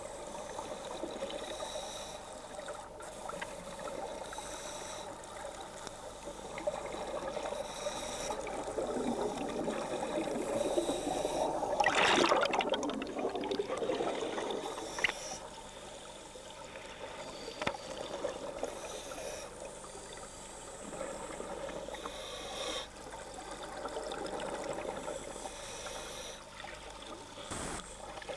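Bubbling and gurgling of scuba divers' exhaled air from their regulators, recorded underwater through a camera housing, with a louder rush of bubbles about twelve seconds in.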